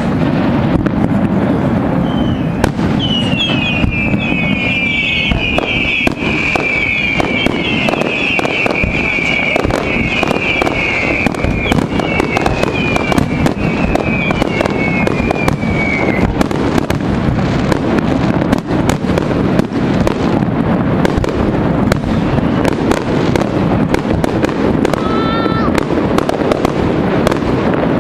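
Fireworks display: a continuous barrage of aerial shells bursting and crackling. From about three to sixteen seconds in, a chorus of whistling fireworks sounds, the whistles falling in pitch.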